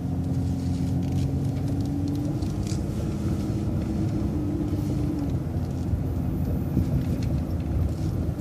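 City transit bus running, heard from on board: a steady low engine and road rumble, with a held whine that drops away about five seconds in.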